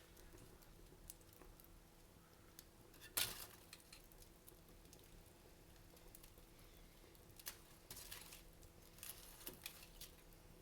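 Wood fire crackling in a fireplace: soft, scattered crackles and pops, with one sharp pop about three seconds in and a flurry of crackles in the last third.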